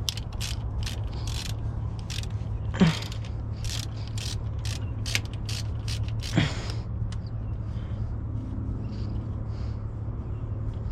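Ratchet wrench clicking in quick runs as the battery cable terminal nuts are loosened, with two louder creaks among the clicks. The clicking stops about two-thirds of the way through.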